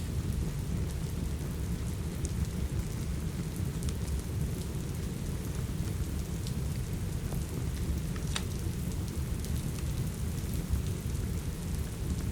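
Steady rain with a deep low rumble, and scattered sharp crackles and pops from a wood fire, the clearest about eight seconds in.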